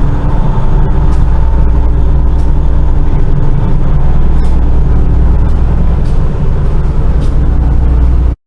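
Vehicle engine running steadily and loudly with a deep hum; it cuts off suddenly near the end.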